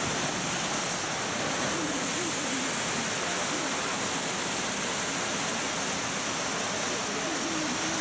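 Nunobiki Falls pouring into its plunge pool: a steady, even rush of falling water.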